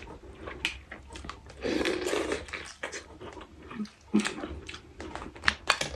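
Close-up eating sounds: mussels and seafood being chewed and slurped, with sharp clicks of shell or utensils scattered through, and a longer wet slurp about two seconds in.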